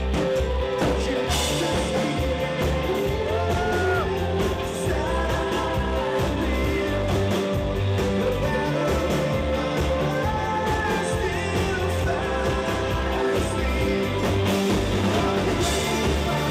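Rock song with a singing voice sliding between notes over drums, bass and a held chord.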